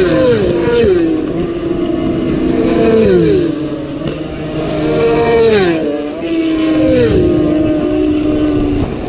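Racing motorcycles passing at high speed one after another, each engine note dropping in pitch as the bike goes by, several overlapping.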